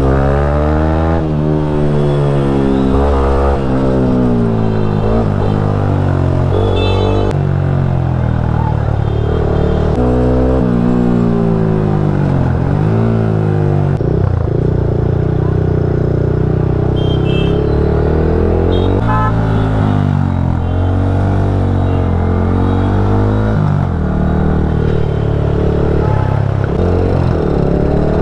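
Yamaha MT-15's 155 cc single-cylinder engine running while the bike is ridden, its pitch rising and falling again and again through gear changes. Its pitch holds steadier for a few seconds around the middle.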